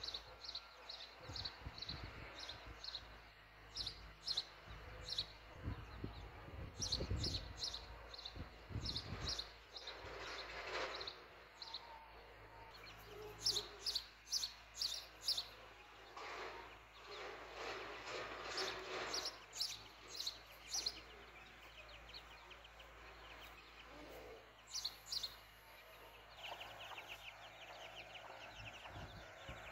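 Young chicks peeping in repeated runs of short, high cheeps, several a second, that come and go.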